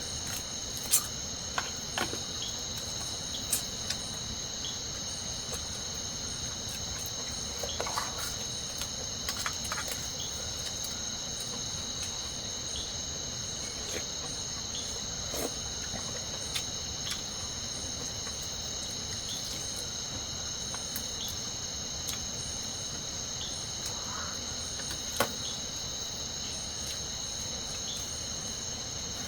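A steady insect chorus, crickets or similar, chirring continuously at a high pitch, with a scattering of sharp clicks and snaps now and then, the loudest about a second in and again near the end.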